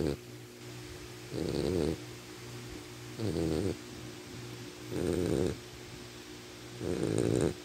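A sleeping pet snoring: a snore about every two seconds, four of them, each about half a second long.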